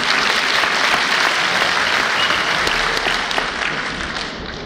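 Audience applauding, the clapping loud at first and dying away near the end.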